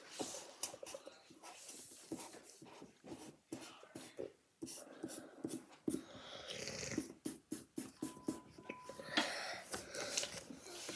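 Quiet handling sounds of drawing with markers at a table: scattered clicks, taps and rustles of markers and paper.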